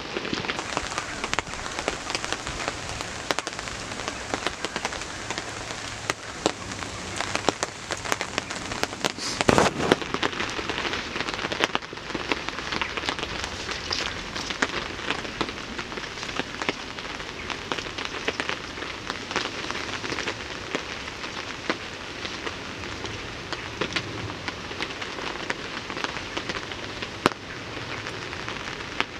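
Heavy rain falling, a dense patter of many individual drops striking close by, with one louder knock about nine and a half seconds in.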